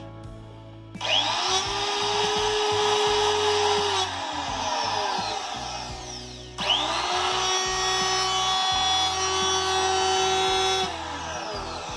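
Compact 530 W, 35,000 rpm hand trim router run with no load, twice. Each time it whines up to full speed within a moment of switching on, runs steadily for three to four seconds, then is switched off and winds down.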